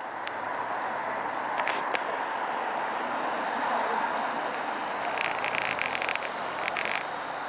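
Street traffic: cars driving past, a steady road noise that swells a little in the middle. A brief run of light clicks comes about five seconds in.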